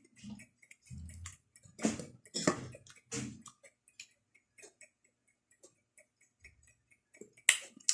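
Close-miked chewing of fresh raw chili leaves: wet crunching and small mouth clicks, with a few louder crunches about two to three seconds in and a sharp one near the end.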